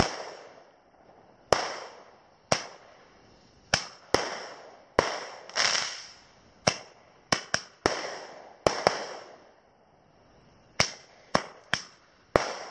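Firecrackers going off one after another at irregular intervals, about sixteen sharp bangs, sometimes two or three in quick succession, each trailing off in an echo. They are set off to drive wild Sumatran elephants away.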